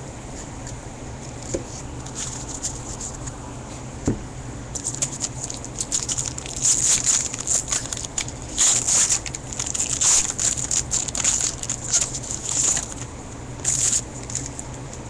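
Foil trading-card pack wrapper crinkling and rustling as it is handled and torn open, in repeated bursts through the second half, over a steady low hum.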